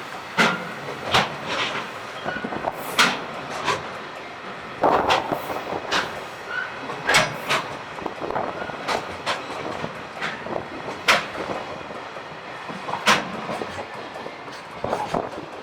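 Freight train rolling past, its wheels clacking over rail joints: sharp strikes come in pairs and small groups every second or so over a steady rolling rumble.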